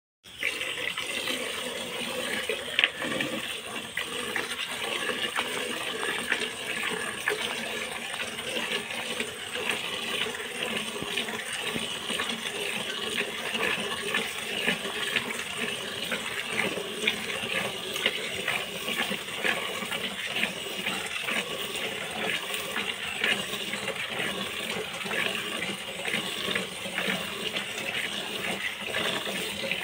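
Milk squirting into a plastic bucket as a cow is milked by hand: a steady run of quick spurts hissing into the milk.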